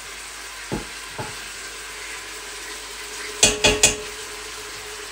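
A stone mortar is scraped out into a metal pot, with two light knocks and then three sharp clatters in quick succession near the end, the last followed by a brief ringing of the pot. A steady sizzle of frying runs underneath.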